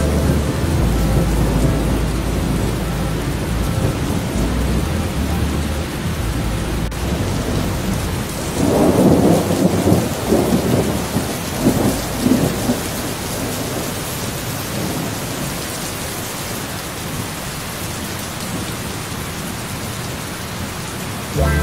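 Steady rain with rolling thunder. A deep low rumble of thunder runs through the first few seconds, and a louder peal breaks about 8 to 13 seconds in, leaving steady rain after it.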